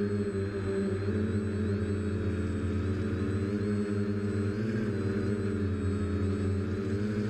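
Home-built Aeroquad quadcopter's four electric motors and propellers humming steadily in flight, heard through its onboard camera, with a slight waver in pitch about five seconds in.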